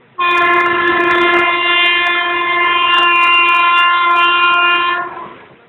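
Train horn sounding one long, steady blast at a single pitch. It starts abruptly and dies away after about five seconds.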